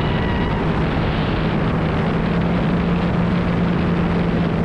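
Jet ski engine running at speed, a steady drone under the rush of wind and spraying water.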